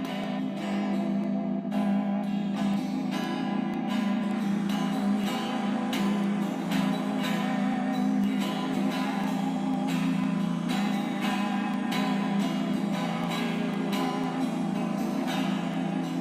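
Music: a guitar strummed and plucked over a steady low drone, with repeated strokes throughout.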